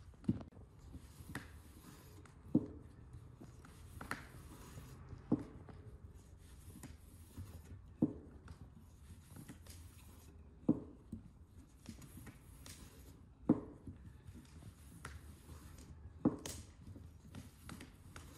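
Dough-making at a table: soft scraping and rubbing with a sharp knock every one to three seconds, as kutab dough is rolled out with a wooden rolling pin and tripe filling is spread over dough with a spoon.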